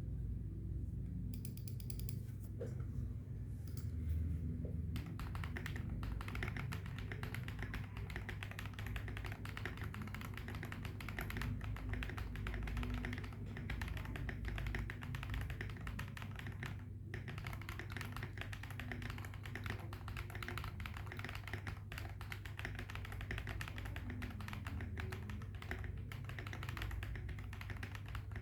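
Typing on a custom mechanical keyboard fitted with KSA-profile keycaps, the keystrokes giving a deep "thock". A few scattered keystrokes turn into fast, continuous typing from about five seconds in, with a short pause about halfway through.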